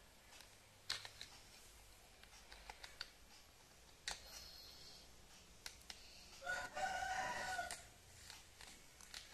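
A rooster crowing once, about a second long, a little past the middle. Around it, scattered light clicks and taps as plastic toy fire-truck parts are handled and taken apart.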